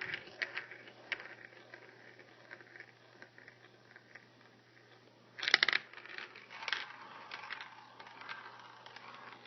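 Small hard objects of a homemade Rube Goldberg chain reaction clicking and clacking: scattered light ticks of a marble rolling and knocking along its track, then a short burst of rapid clattering about five and a half seconds in, like dominoes toppling in a row, followed by a few more rattles.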